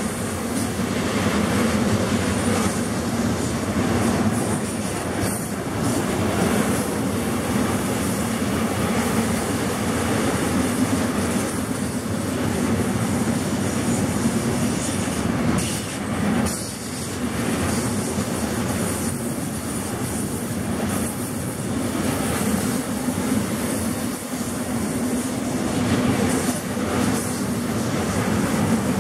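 Freight wagons carrying containers and tank containers rolling past on the track: a steady, loud rumble of steel wheels on rail, with repeated clacking as the wheelsets pass over the rail.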